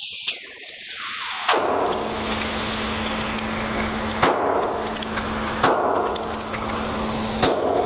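Gunshots at a shooting range: five sharp reports at irregular spacing, each with a short ringing tail, over a steady low hum.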